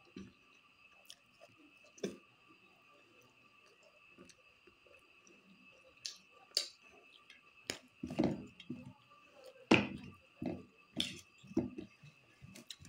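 Close-up eating sounds: wet chewing and mouth smacks, with squelching as fingers mix rice and curry on a steel plate. They come as scattered clicks at first and grow busier and louder over the last few seconds, over a faint steady whine.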